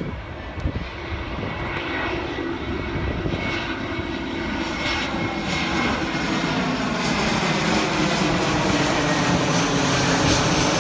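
Airbus A320-214's CFM56 jet engines, heard as the airliner flies low overhead on approach with gear down. A steady jet rumble and whine grows louder throughout, with a sweeping, phasing whoosh as it comes close.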